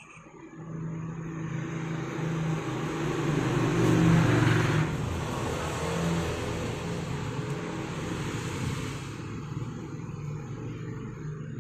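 A motor vehicle passing by: a steady engine hum with road noise, swelling to its loudest about four seconds in, then slowly fading.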